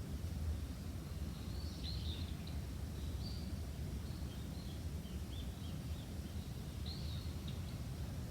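Small birds calling in a bamboo forest: a string of short, high chirps and quick trills that begins about a second and a half in. Under them runs a steady low rumble.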